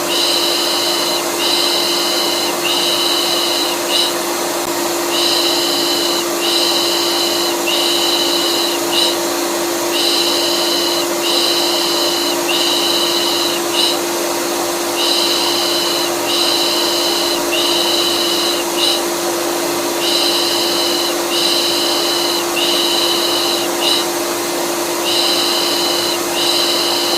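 Vacuum cleaner running steadily with a constant hum. Over it come rhythmic 'pış pış' shushes, each about a second long, in groups of three or four with short pauses: white noise meant to calm a colicky baby.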